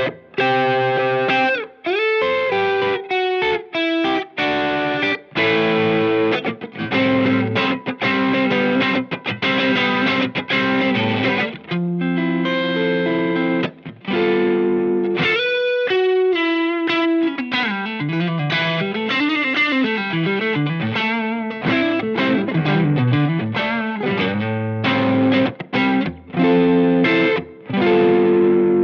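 Electric guitar played through a Cornerstone Antique Classic Drive V2, a Tube Screamer-style overdrive pedal, giving a driven tone: short chopped chords, then a passage of single notes bent up and down in the middle, ending on a held, ringing chord.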